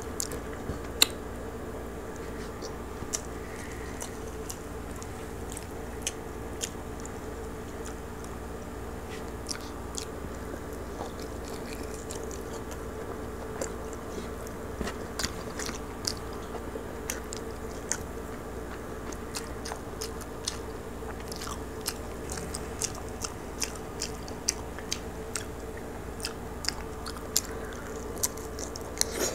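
Crispy roast pig's head (lechon) being torn apart by hand and chewed, with scattered sharp crunches and crackles that come more often in the second half. A steady low hum runs underneath.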